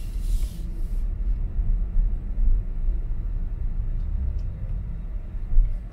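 Steady low rumble of tyres on asphalt heard inside the cabin of a moving Tesla Model Y, an electric car, with a brief hiss just at the start.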